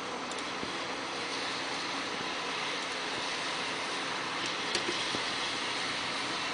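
Steady, even background hiss with two faint clicks, one just after the start and one about five seconds in.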